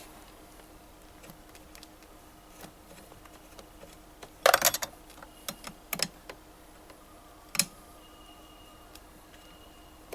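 Allen wrench clicking against the Allen bolt on a massage chair's backrest actuator: a quick cluster of sharp clicks about four and a half seconds in, then a few single clicks.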